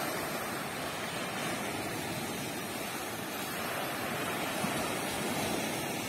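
Sea surf: small waves breaking and washing up a sandy beach in a steady rush.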